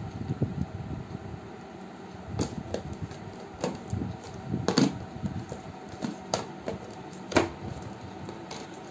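Plastic toy parts being handled against a cardboard box and a wooden table: scattered sharp clicks and knocks, about half a dozen, the loudest around five and seven and a half seconds in.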